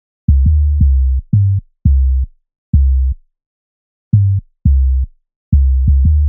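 808 bass pattern played solo: short, bouncy sub-bass notes, each with a click at the start, jumping between pitches in a syncopated drum-and-bass rhythm, with a pause of about a second near the middle.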